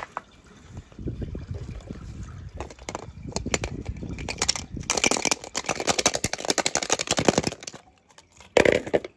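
Water trickling and splashing from wet plastic capsule eggs as they are handled, with scattered light plastic clicks. The water runs heaviest a little past the middle, and a short, loud plastic knock comes near the end.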